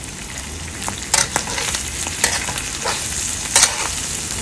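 Minced pork, chili bean paste and freshly added chili flakes sizzling in oil in a hammered wok, frying to bring out the red oil. A metal spatula stirs the mixture, scraping and knocking against the wok three times.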